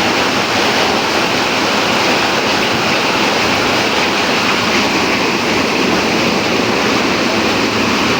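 Storm: a steady, loud rushing of wind and heavy rain.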